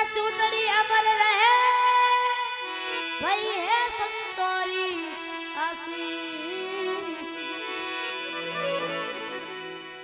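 A boy singing a devotional bhajan in long, ornamented phrases whose pitch glides and bends, over a steady held accompanying drone. The singing is loudest in the first couple of seconds and fades toward the end.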